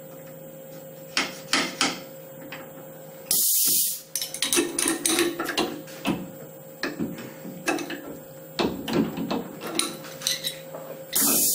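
Pneumatic power drawbar on a Tormach PCNC 1100 mill firing twice, each a short sharp blast of compressed air, about three seconds in and again at the very end. Each blast is the collet being opened to test drawbar tension after the drawbar bolt has been tightened. Between them, steel wrenches clink against the drawbar bolt and spindle over a steady machine hum.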